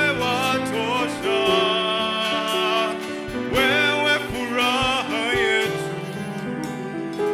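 Worship music: a singer holds long, wavering notes over acoustic guitar and sustained accompaniment. The voice drops out about two thirds of the way through, leaving the instruments playing.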